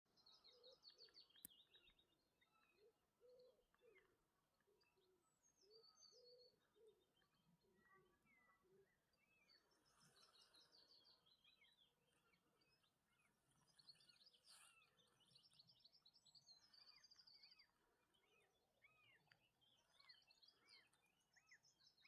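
Faint birdsong from several birds: high, rapid trills and short chirps, with a series of short lower notes in the first half.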